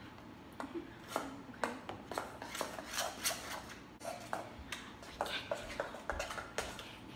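A kitchen utensil scraping and knocking against a stainless steel mixing bowl in a quick irregular series, clearing out the last of the cake batter.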